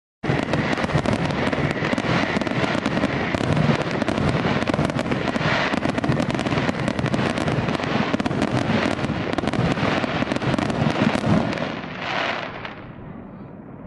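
Fireworks going off in a rapid, dense barrage of bursts and crackling. It starts abruptly just after the start and thins out and fades near the end.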